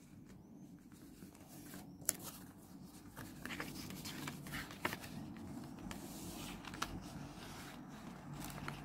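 Paper and stationery being handled: a rustling, scraping sound that picks up about three seconds in, with sharp taps or clicks about two, five and seven seconds in.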